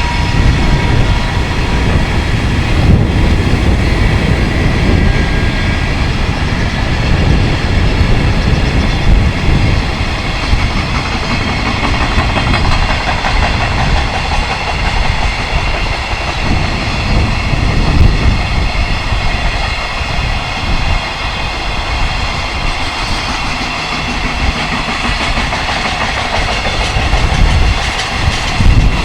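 A long freight train passing close by, its wagon wheels running over the rail joints in a continuous loud rumble and clatter.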